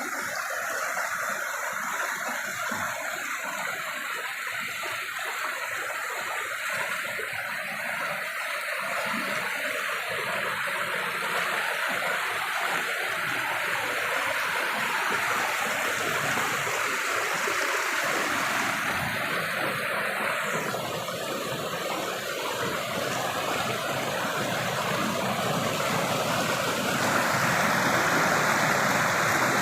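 Waterfall water rushing in a steady roar that grows louder near the end.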